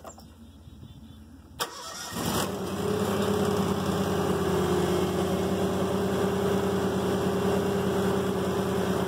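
John Deere X739 garden tractor's V-twin engine being started: the starter clicks in about a second and a half in and cranks briefly, and the engine catches within a second. It then runs steadily at an even pitch.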